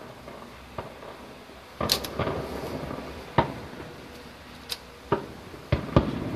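Distant fireworks shells bursting: a string of irregular booms, each trailing into a rumbling echo, coming quicker and louder toward the end.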